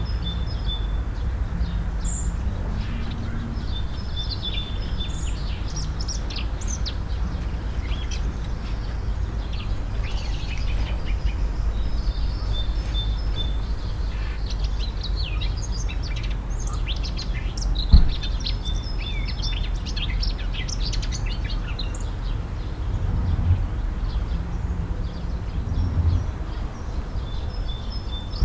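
Small birds chirping and twittering in short, repeated calls over a steady low rumble, with a single sharp knock about two thirds of the way through.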